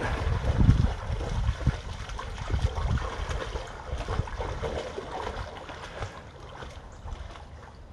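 A dog wading and swimming in shallow lake water, splashing and sloshing with uneven bursts, under a low fluctuating rumble of wind on the microphone.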